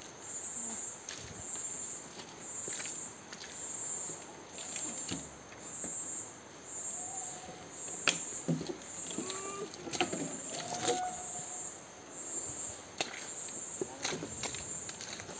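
Tropical rainforest insects calling in a high, pulsing buzz that rises and falls a little more than once a second. Scattered clicks and steps sound over it as people walk the muddy trail.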